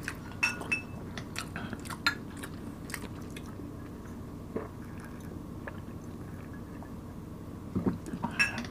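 Heavy glass water mugs clinking a few times in the first two seconds, with brief high ringing, then water being drunk from them; a few knocks near the end.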